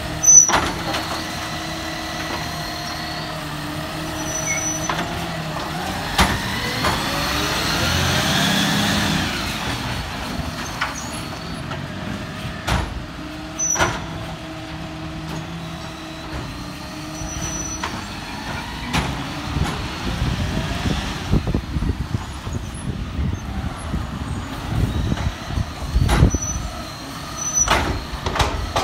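Side-loading garbage truck at work: its diesel engine runs steadily and revs up with rising pitch a few seconds in. Short high air-brake hisses and several sharp knocks come through at intervals.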